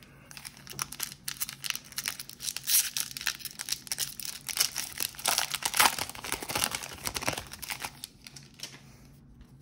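A 2021 Topps Series One baseball card pack wrapper being torn open and crinkled in the hands: dense, irregular crackling that dies away about eight seconds in.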